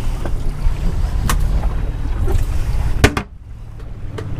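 Wind rumbling on the microphone aboard a small boat at sea, with a sharp knock about a second in and a louder one about three seconds in, after which the sound drops to a quieter hiss.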